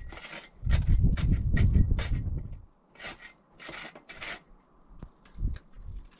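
Scraping and rubbing on rough debris, with scattered clicks and heavy low handling thumps in the first couple of seconds, then lighter scrapes.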